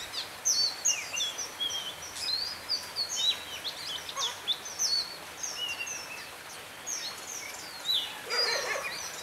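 Oriental magpie-robin song: a fast, varied string of high whistled notes that sweep up and down. Near the end comes a lower, harsh rasping call.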